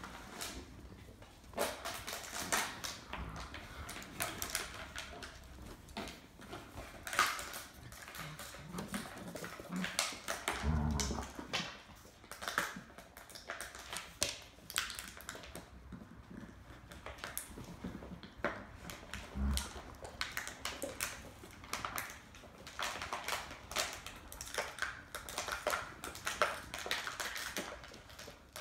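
Husky-type puppies scuffling and playing tug-of-war on a hardwood floor: a running clatter of claws and paws clicking on the wood, with a few short puppy vocal sounds, the strongest about eleven seconds in.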